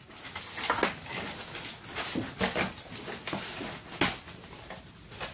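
Plastic packaging bag crinkling and rustling, with styrofoam packing pieces rubbing and knocking, in irregular bursts as the packing is pulled apart.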